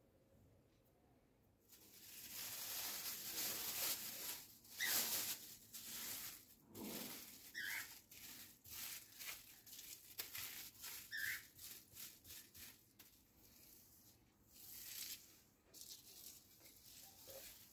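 Thin plastic bag crinkling and rustling as hands press and smooth a slab of tart dough flat inside it, starting about two seconds in and going on in irregular crackly bursts.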